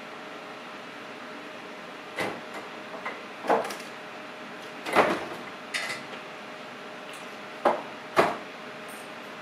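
A handful of short, sharp knocks and clicks, about six spread over several seconds with the loudest about halfway through, over a steady low room hum.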